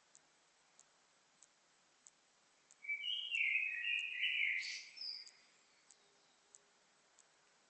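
A songbird singing one short phrase of about two and a half seconds, starting about three seconds in, with high warbled notes. Faint clicks tick evenly about one and a half times a second throughout.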